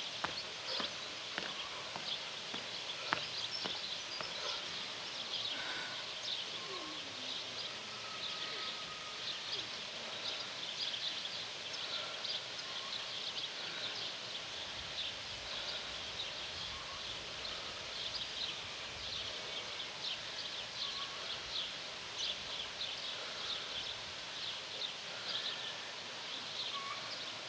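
Outdoor rural ambience: a steady, dense high-pitched chirring with a few scattered bird calls.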